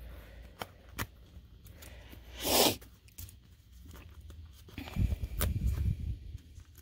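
Hands at work on a paper-craft card: a few light taps, one short tearing rasp about two and a half seconds in, typical of adhesive foam dots being peeled off their backing sheet, then low bumps and rustling of paper on the tabletop near the end.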